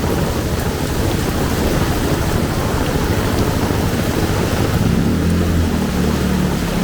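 Heavy rain pouring steadily. A low engine-like hum, likely a passing vehicle, grows stronger about five seconds in.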